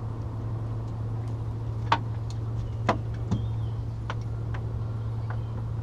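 A steady low hum runs underneath, with a few sharp clicks and taps, the loudest about two and three seconds in.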